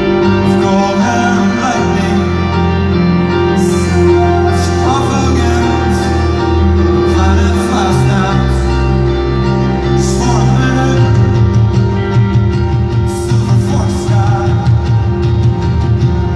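A rock band playing live in a large arena, with a singing voice over the band. About eleven seconds in the low end turns busier and the music gets a little louder.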